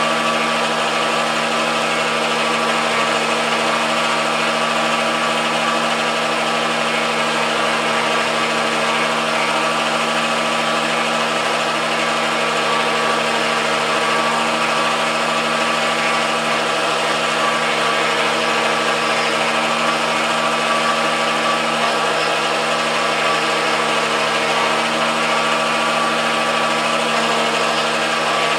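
Motor drive of an MDF rose engine lathe running steadily during a programmed guilloche cut, a constant whine and hum that does not change.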